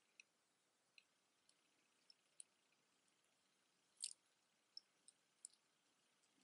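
Faint, scattered clicks of a metal snake-chain necklace and its pendant being handled, metal tapping on metal, with the loudest click about four seconds in; otherwise near silence.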